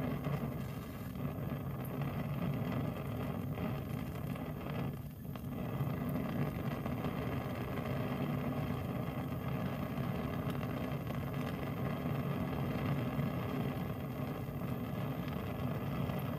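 Lit Bunsen burner flame burning with a steady low rumble.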